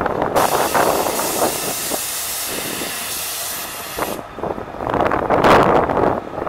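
Air-ride suspension on a lowered 2000 Chevrolet Silverado letting air out: a steady hiss for about four seconds as the truck drops onto its wheels. A louder rushing noise follows near the end.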